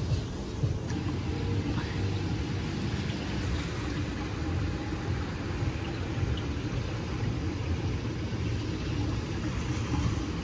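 A steady low rumble of open-air ambience, with no distinct events.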